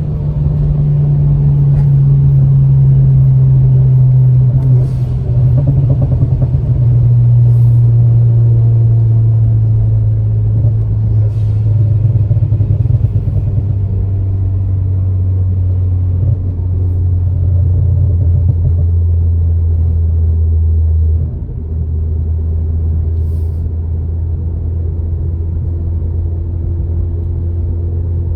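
Ford Focus ST's 2.0 L EcoBoost turbocharged four-cylinder, through a Cobb exhaust with catless downpipe, droning steadily while driving, its pitch sinking slowly as the revs fall. The level dips briefly about two-thirds of the way through.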